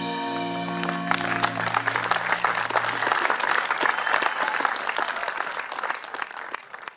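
A band's final chord, with electric guitars, ringing out and dying away over about three seconds, while an audience breaks into applause about a second in. The applause fades out near the end.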